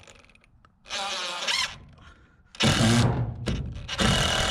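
DeWalt 20V XR cordless driver driving screws up into a wooden barn truss, in three separate runs: a short one with a rising whine about a second in, then two longer, louder runs.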